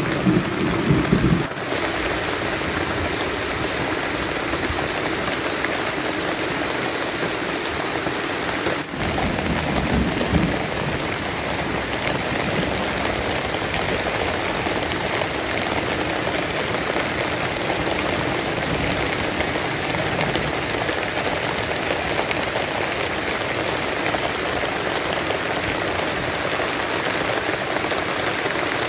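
Steady rain falling on tarpaulin roofs and leaves. A low rumble of thunder cuts off about a second and a half in, and a faint low swell comes around ten seconds in.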